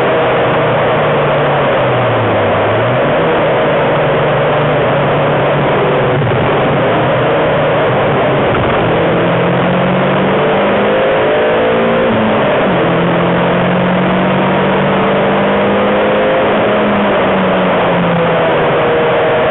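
Renault Twingo RS's 1.6-litre four-cylinder engine heard from inside the cabin while lapping a race track, over a steady hiss. Its pitch dips and recovers twice in the first few seconds, climbs steadily from about nine seconds in, drops at a gear change near the middle, then holds steady at speed.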